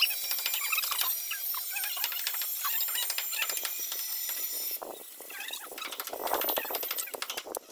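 Putty knife scraping against a ceiling as putty is spread, with short high squeaks and scratches, and a longer scrape near the end.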